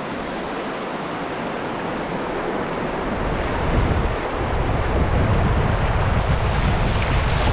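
Rushing whitewater of a creek rapid around a kayak running through it, with wind noise on the microphone; a low rumble grows louder from about three seconds in.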